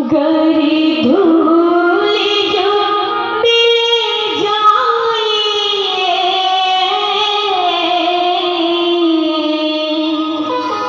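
Woman singing a Hindi devotional bhajan in long, held notes that glide and bend in pitch.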